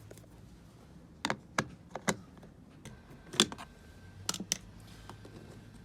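Scattered sharp clicks and taps of a Torx screwdriver working a T27 screw out of the plastic interior door-handle trim, about six in all, the loudest about three and a half seconds in.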